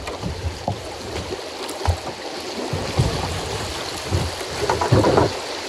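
Water running through a shallow rapid that low water has reduced to a trickle, a steady rush, with a few low thumps about a second apart.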